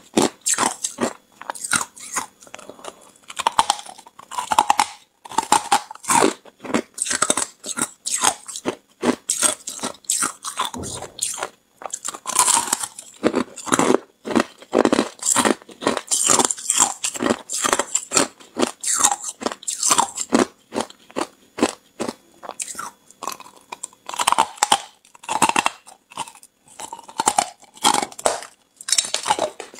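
Hard clear ice being bitten and chewed: a rapid run of sharp crunches, several a second, broken by a few short pauses.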